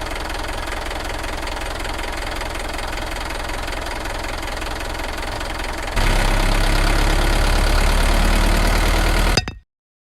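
An engine running steadily with a knocking quality. About six seconds in it turns louder and deeper, then cuts off abruptly near the end.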